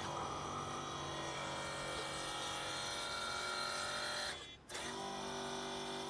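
Small electric motors of a remote-control model Cat excavator whining steadily as the upper body swings round and the boom moves. The whine stops briefly about four and a half seconds in, then starts again at a different pitch.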